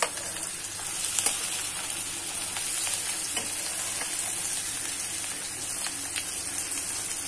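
Egg-coated mutton shami kababs shallow-frying in a pan of oil, a steady sizzle, with a few light clicks of a metal spatula against the pan as they are turned.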